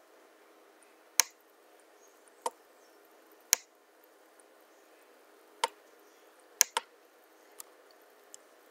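Single sharp clicks of a computer mouse, irregularly spaced, about eight in all with two in quick succession a little before the end.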